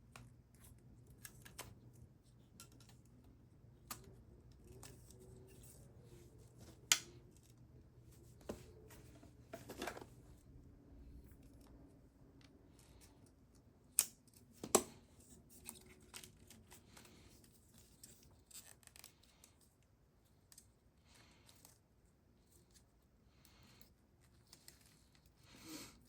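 Small plastic parts of a Dyson V10 vacuum being handled and fitted back together: scattered light clicks, taps and scraping, with a sharp click about seven seconds in and two more about halfway through.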